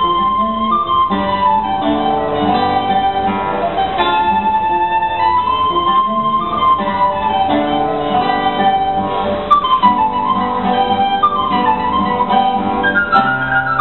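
Soprano recorder and guitar playing an anonymous early-seventeenth-century piece in duet, the recorder carrying a continuous melody over plucked guitar notes and chords.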